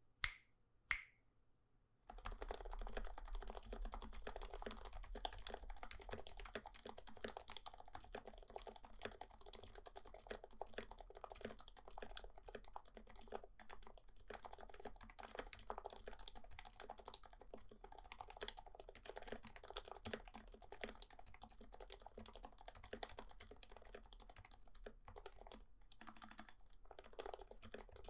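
Continuous typing on a Happy Hacking Keyboard Professional 2 with Topre 45 g switches lubed with Krytox 205g0, fitted with silencing rings and case foam. The keystrokes start about two seconds in and run densely, with a short pause near the end. Two sharp clicks come in the first second.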